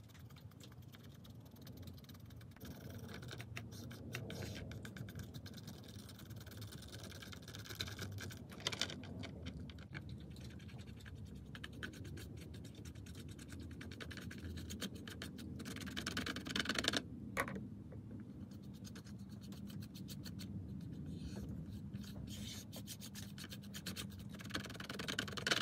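A paintbrush's bristles scratching softly as they brush dry weathering powder over the plastic roof of an N gauge model coach, in quick repeated strokes with a few louder scrapes.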